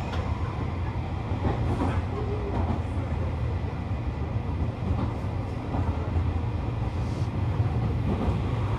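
Tobu Noda Line electric commuter train running, heard from inside the carriage: a steady low rumble of wheels on rails, with a few light clicks.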